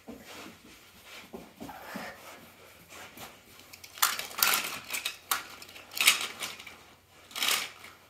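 Small die-cast and plastic toy cars clattering and clinking against each other as they are scooped together into a pile by hand, with louder bursts of rattling about halfway through and again near the end.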